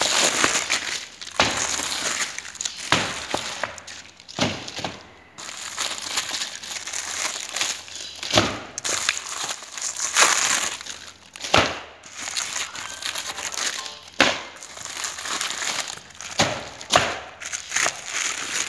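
Hands-on handling work in ribbon fish processing: irregular crunching and crinkling, broken by sharp knocks every one to three seconds.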